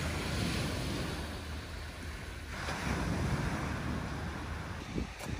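Sea waves washing onto the shore, swelling twice, with wind rumbling on the microphone and a couple of light knocks near the end.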